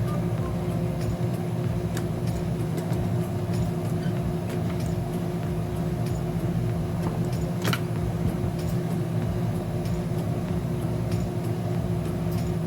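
Steady low mechanical hum with a constant tone, broken by a few faint clicks and one sharper click about eight seconds in.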